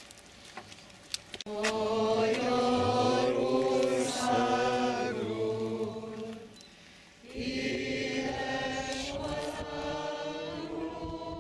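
Choral music: voices holding long sustained chords in two phrases, the first entering about a second and a half in, with a short break about six seconds in before the second.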